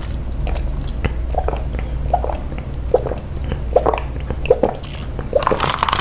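Close-miked wet mouth sounds: soft clicks and squishes of chewing and swallowing donut, then sipping a drink through a straw from a plastic cup near the end. A low steady hum runs underneath.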